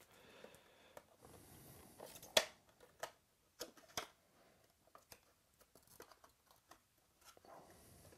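A shrink-wrapped cardboard trading-card box being opened by hand: faint plastic-wrap crinkling, then scattered clicks and rustles of the cardboard lid and flaps, the sharpest click about two and a half seconds in.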